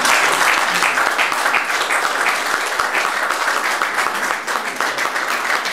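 An audience applauding: many hands clapping steadily, with single claps standing out.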